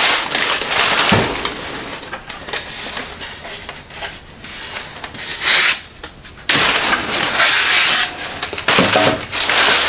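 Packing material and the cardboard box rustling and crackling in several bursts as a new radiator is pulled out and handled.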